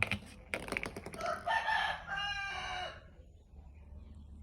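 Rooster crowing: a cock-a-doodle-doo of short rising notes and a long held final note, lasting about a second and a half. It is preceded by a few sharp clicks.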